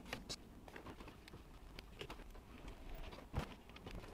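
Faint scattered clicks and small knocks of a plastic paddle shifter and its parts being handled and fitted onto a car's steering wheel, with one louder knock a little over three seconds in.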